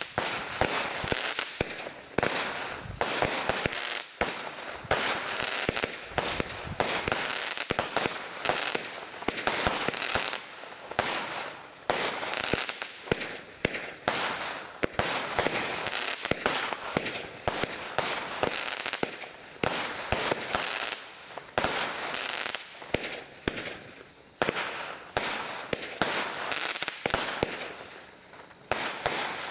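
Fireworks International 'Master of the Universe' 500-shot cake firing, a dense rapid string of shots and small bursts several times a second. It thins out near the end.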